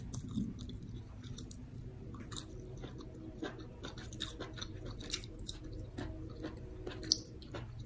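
A person chewing a mouthful of cooked vegetables and rice, with many short wet mouth clicks and one sharper click about seven seconds in.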